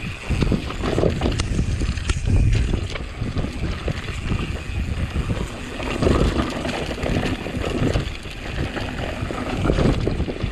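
Wind buffeting the microphone in gusts, over the rattling and tyre noise of a mountain bike ridden on a rough track.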